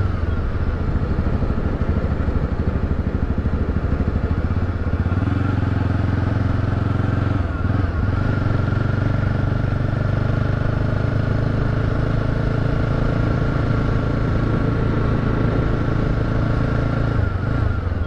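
Motorcycle engine running steadily as the bike rides along. Its note drops briefly and picks up again twice, once about halfway and once near the end.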